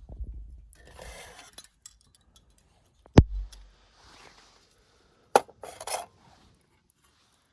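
Tableware being handled: rustling and a few sharp knocks and clinks of dishes or utensils, the loudest a single knock about three seconds in.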